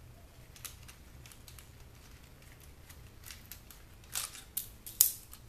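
Small clicks and taps from unscrewing and working a circuit board loose in a portable DVD player's plastic case: faint scattered ticks, then a run of sharper clicks about four seconds in, the loudest a single sharp click near the end.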